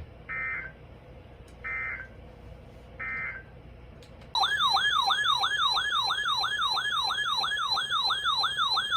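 Three short buzzy Emergency Alert System end-of-message data bursts, evenly spaced, closing the tornado warning. About four seconds in, a much louder electronic siren tone starts, warbling rapidly up and down about two and a half times a second.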